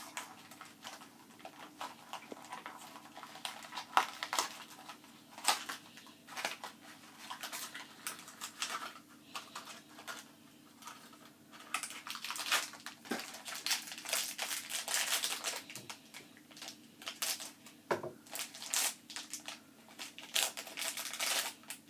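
Small blind-box toy packaging being opened and handled by hand: crinkling and tearing of the wrapper, with scattered sharp clicks and taps.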